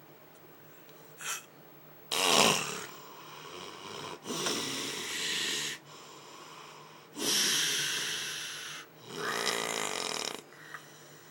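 A sleeping person snoring heavily: four long, rasping snores with short pauses between them, the loudest about two seconds in.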